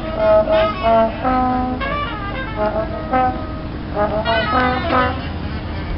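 A brass-type horn playing short melodic phrases of held notes over the stage sound system during a band's sound check, two bursts of phrases with a pause between, over a low steady outdoor rumble.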